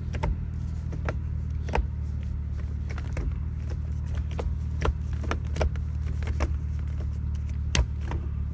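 Gear lever of an E36 BMW with a newly fitted short shifter being worked through the gears: a string of sharp, irregular clicks and clunks as it snaps into each gate, the loudest near the end, over a steady low hum.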